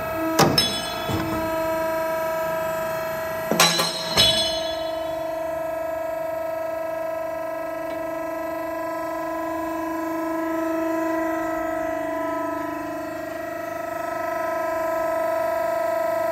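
Kingsland 85XS hydraulic ironworker running, its 7.5 kW motor and pump giving a steady hum. Loud metallic bangs come about half a second in and again around four seconds in as the shear cuts through steel flat bar and the steel drops.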